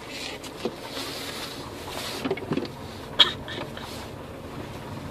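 Steady road and engine noise inside a slowly moving car, with a single sharp knock about three seconds in.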